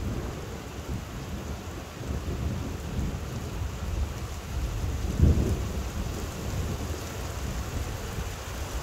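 Thunder rumbling, setting in suddenly and loudest about five seconds in, over steady rain.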